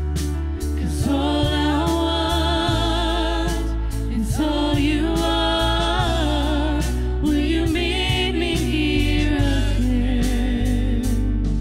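Live worship band playing: several voices singing a slow line together with vibrato over drums, keyboards and a sustained bass.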